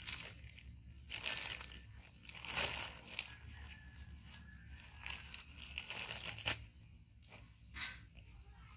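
Crinkling and rustling of a disposable diaper and its packaging being handled, in irregular bursts with a louder one near the end.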